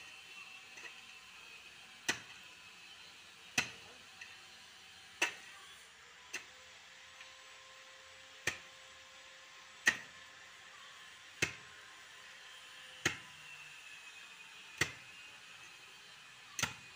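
A pickaxe digging a pit in red soil: sharp blows about every one and a half seconds, ten in all, one of them lighter.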